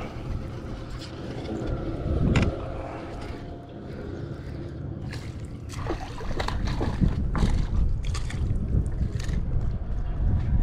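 Water splashing and sloshing, with scattered clicks and knocks, as a hooked smallmouth bass is fought and reeled in beside a fishing kayak, over a steady low rumble.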